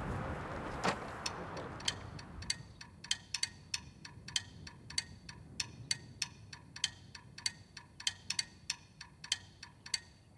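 A run of sharp, ringing ticks, about three or four a second, over a hiss that fades away in the first few seconds.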